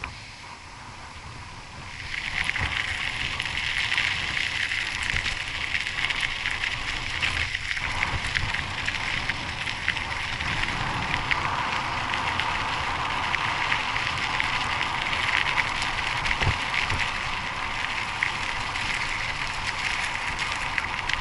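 Mountain bike tyres rolling over loose gravel: a loud, dense crackling crunch that sets in abruptly about two seconds in, after a quieter stretch of tyre noise on asphalt.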